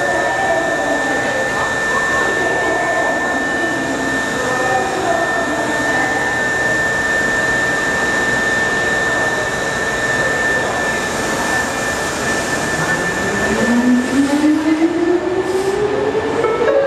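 Osaka subway train noise at the platform: a steady rumble and hiss with a thin constant high whine. Over the last four seconds the electric motor whine of a subway train starting to move rises steadily in pitch as it pulls away.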